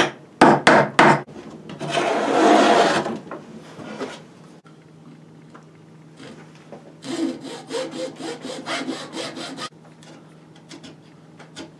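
A few sharp knocks on wood and a scraping rub, then a coping saw cutting a groove in a small board held in a vise: a run of quick back-and-forth strokes lasting a couple of seconds. It ends with faint scraping as a chisel pares out the waste.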